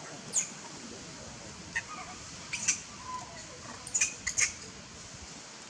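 Baby long-tailed macaque giving a series of short, high-pitched squeaks, several in quick succession about four seconds in.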